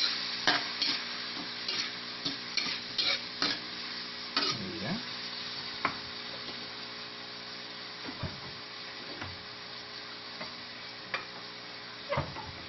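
Sauce sizzling in a wok, with a metal spatula scraping and clicking against the pan as it is stirred during the first few seconds. The sizzling then goes on steadily, with only a few knocks.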